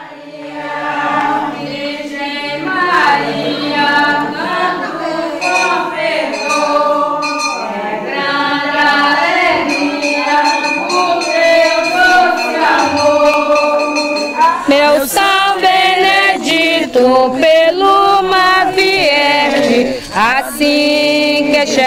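A group of women singing a devotional hymn to Saint Benedict together. Short percussive clicks join in after about fifteen seconds.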